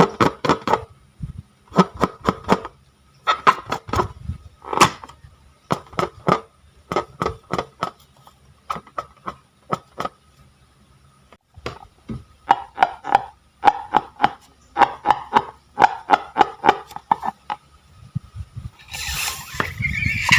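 Glossy slime being squeezed and poked by hand, making quick bursts of sharp clicking pops, several at a time with short pauses between. Near the end a hissing, squeaky sound comes in.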